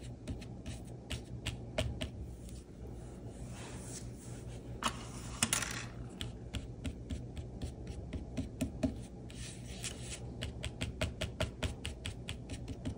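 Small ink applicator tapping and dabbing on card stock on a craft cutting mat: many short, irregular taps a few per second, with a couple of brief rubbing swishes about four and five seconds in.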